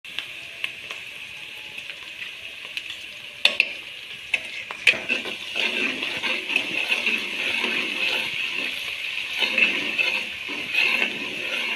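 Chopped onions sizzling in hot oil in a metal wok, with a steel ladle clinking and scraping against the pan as they are stirred. The sizzle gets louder about halfway through.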